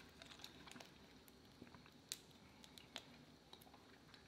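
Faint, scattered small clicks and crackles of cooked prawn shells being pulled apart by hand.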